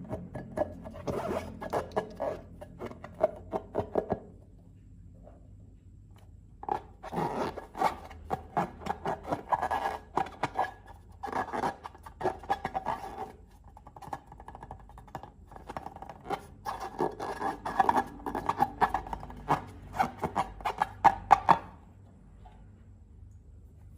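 Three bursts of dense crackling and scraping, each a few seconds long with short quiet gaps between, from slime materials being worked by hand.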